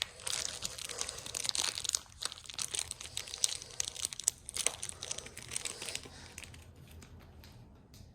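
Small pack of replacement toy-train tyres being handled and opened: its packaging crinkles and tears in a dense crackle that dies down about six seconds in.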